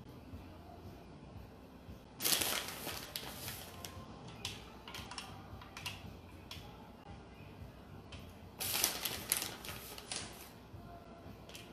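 A plastic bag of shredded cheese crinkling as it is shaken out over stuffed bell peppers, in two louder bursts about two seconds in and about nine seconds in, with light scattered clicks and taps in between.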